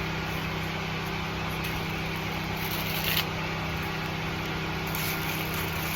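An engine running steadily: an even low hum with a hiss over it.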